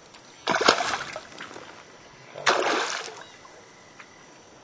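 A hooked walleye thrashing at the surface beside a canoe, splashing twice: about half a second in and again about two and a half seconds in.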